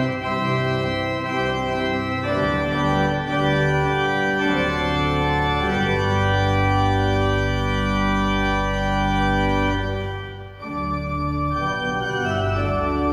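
Church organ playing closing music after the benediction: sustained chords over deep bass pedal notes, the chords changing every second or two, with a brief break about ten and a half seconds in.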